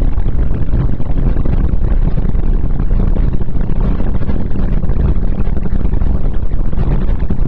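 Renault Clio 1.6 16v's four-cylinder engine running under way, heard from inside the car as a steady low drone. A heavy rumble of wind and buffeting on the microphone swamps it, making the recording sound poor.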